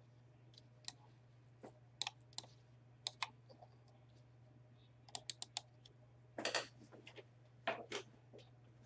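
Irregular clicks and taps of a computer mouse and keyboard, some in quick clusters, over a faint steady hum.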